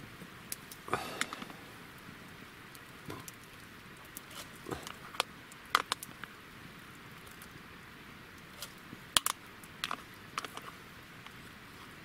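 Wood campfire crackling, with scattered sharp pops over a steady soft hiss.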